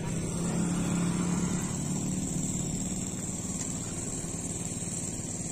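Iseki combine harvester's engine running steadily, a little louder for the first couple of seconds before settling to an even hum.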